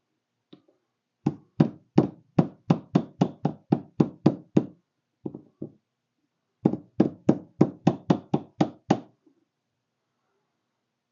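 Light hammer taps on the metal housing of a tractor ignition switch, bending its outer edge back over the switch's inner part to close it up. They come in two quick runs of about three taps a second, with a brief pause between the runs.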